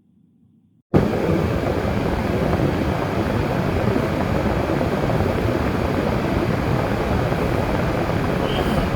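Car driving: steady road and tyre noise that starts abruptly about a second in and holds level.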